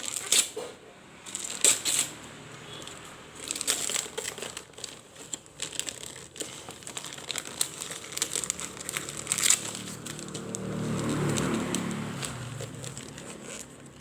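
Gift wrapping paper being torn and crumpled, with repeated crinkles and rips. A low, hum-like sound rises and fades for a few seconds past the middle.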